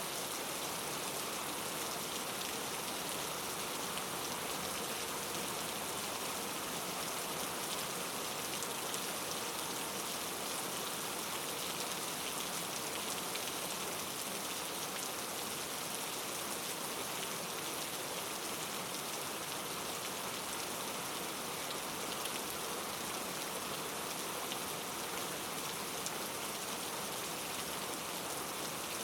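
Steady rain falling on a surface, a constant even hiss with a fine patter of individual drops.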